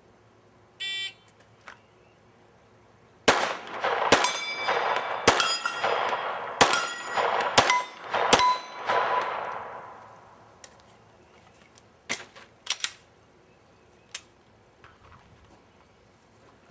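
A shot timer's start beep about a second in, then six gunshots over about five seconds, each followed by the ring of a steel target plate being hit; the ringing dies away a little after the last shot.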